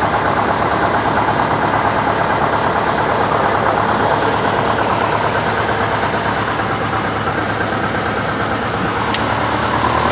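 Piper PA-22/20 light aircraft's piston engine and propeller running steadily at low power, with an even, unbroken drone.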